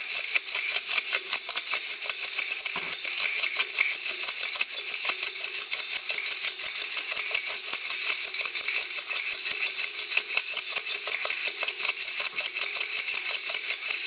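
Pieces of crushed silicon carbide sharpening stone rattling and clinking inside a metal strainer that is shaken steadily and fast to sift the grit through its holes.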